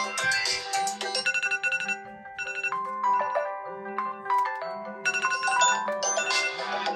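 Several phone ringtones and alarm-clock tones playing over one another: melodic chiming tunes over a low pulse that repeats about every 0.7 s, thinning out briefly about two seconds in.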